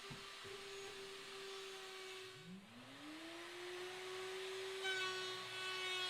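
Electric router motor running at a steady high whine. About halfway through it dies away, then spins up again with a smoothly rising pitch, settling into a steady whine that grows harsher near the end.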